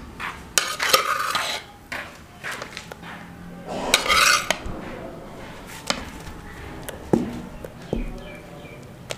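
Utensils clinking, knocking and scraping against a large metal pot as lumps of khoya are tipped into hot milk, then a ladle knocking in the pot as it stirs. The sound is a series of scattered knocks, with two longer scraping stretches about one second in and about four seconds in.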